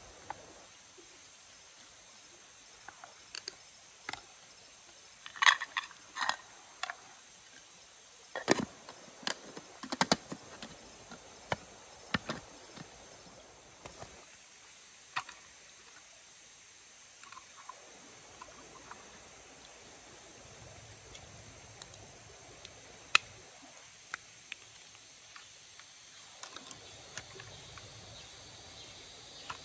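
Scattered sharp clicks and clatters of chopsticks against a metal camping pot as beef is mixed, densest in the first half. Near the end, small clicks of a portable gas stove being handled and its gas canister fitted. Insects chirr steadily behind.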